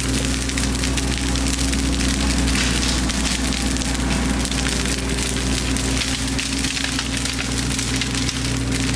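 A large brushwood bonfire crackling and popping steadily, with the low steady drone of a Bobcat mini excavator's engine running underneath.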